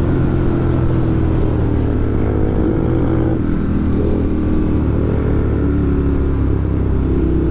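Ducati Monster 1200 S V-twin engine running under way, its note easing down as the bike slows from about 120 to 80 km/h into a bend, with wind rushing over the camera.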